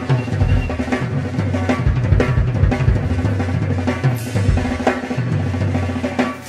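Live rock drum kit played hard, with kick drum, snare and cymbals in a busy pattern, over an electric bass guitar holding low notes.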